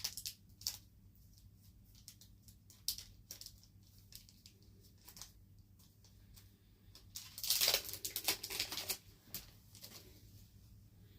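Trading-card pack wrapper from a 2025 Prizm mega box crinkling and being torn open. Scattered crackles lead up to a longer, louder rip about seven to nine seconds in.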